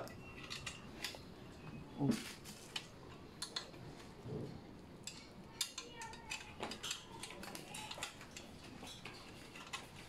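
Small metal clicks and clinks of bolts, nuts and hex keys being handled while a bolt is threaded into a bike rack's support strut by hand.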